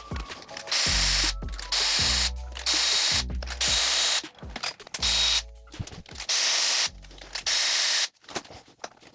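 Cordless power ratchet spinning in seven short bursts, each about half a second to under a second, as it runs fasteners out of the engine.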